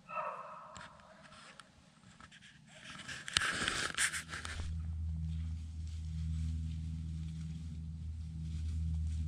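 A short bay from a beagle at the start, then rustling and handling noise in dry brush with a sharp click about three and a half seconds in, giving way to a steady low hum.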